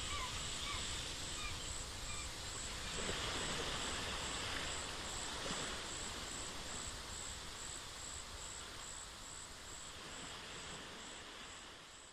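Evening outdoor ambience: a steady wash of noise with insects chirping in a high, regular pulse about three times a second, fading out at the end.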